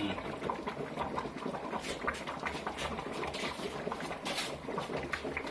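A metal serving spoon scoops from a cooking pot of coconut-milk fish stew and spoons it onto a plate of rice. Small scattered clicks and liquid dripping, with a sharper clink about four and a half seconds in.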